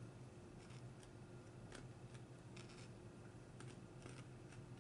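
Near silence: room tone with a low steady hum and a few faint, irregular clicks.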